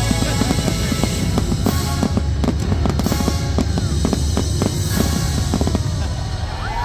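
Aerial fireworks bursting in quick succession, a dense run of bangs and crackles that thins out near the end. The fireworks show's music plays underneath.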